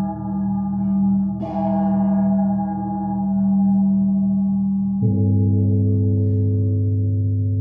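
Gongs ringing with a long, shimmering sustain of many overtones. A fresh stroke comes about a second and a half in. About five seconds in, the sound shifts to a deeper, steady hum.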